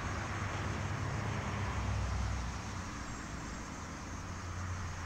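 Steady low rumble under an even hiss, with no tune or voice. The rumble eases a little about halfway through.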